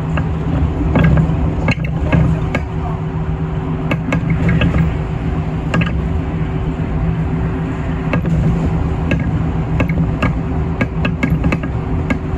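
City bus running at motorway speed, heard inside the cabin near the front: a steady engine drone over road and tyre noise, with frequent small rattles and clicks from the bus's fittings.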